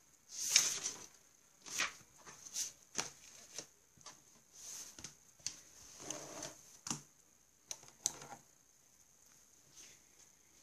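Paper rustling and sliding on a desk, broken by sharp clicks and taps as pens are set down and picked up; the loudest rustle comes about half a second in.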